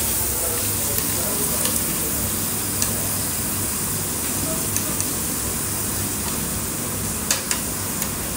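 Pork sizzling steadily on a tabletop Korean barbecue grill plate, with a few light clicks of utensils, two close together near the end.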